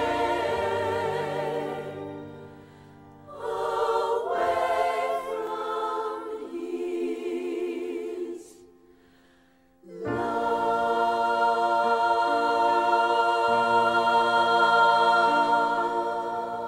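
Recorded choir singing, a gospel-style arrangement of a sacred song. The music dips briefly about two seconds in, drops to near silence about eight seconds in, and the choir comes back in full about ten seconds in.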